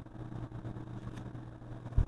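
Steady low mechanical hum, with a single sharp thump right at the end.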